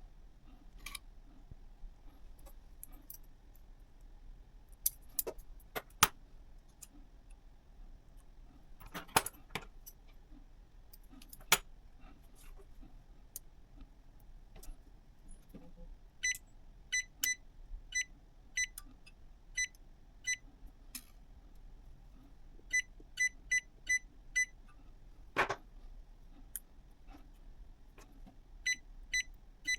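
A series of small metallic clicks and ticks, some with a brief high ring. They come in runs of about two a second in the second half, between a few louder sharp knocks.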